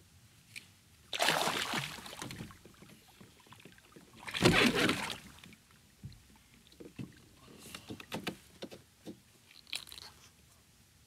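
A hooked largemouth bass splashing at the surface twice, each splash lasting about a second, the second the louder. Light knocks and rustling follow as the fish is brought in by hand.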